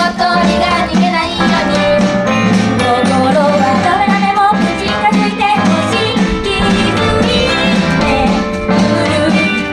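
Upbeat Japanese idol pop song: female voices singing into handheld microphones over a backing track with a steady beat.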